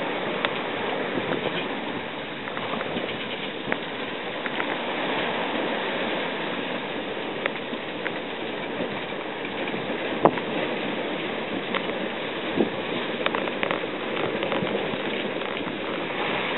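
Steady rush of water and spray along the hull of a Haber 660 small sailing cruiser under way through choppy sea, with scattered sharp knocks and splashes, the loudest about ten seconds in.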